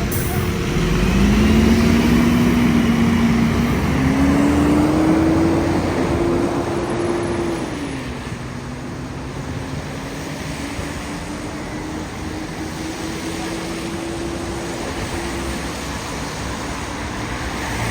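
A bus pulling away: the engine and drivetrain whine rises in pitch as it accelerates, drops about eight seconds in as it changes gear, then climbs slowly again, over steady street traffic.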